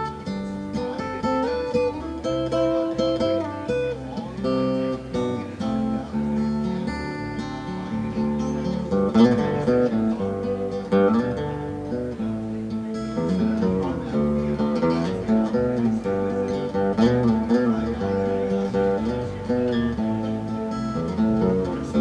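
Acoustic guitar played solo, a picked melody over chords in an instrumental break of a folk song, with some notes wavering in pitch about halfway through.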